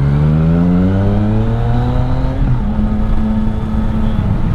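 Yamaha MT-09 Tracer 900's three-cylinder engine through an Akrapovic exhaust, revving up steadily under acceleration. About two and a half seconds in the revs drop sharply at an upshift, then it settles to a steady cruise, over a constant low rush.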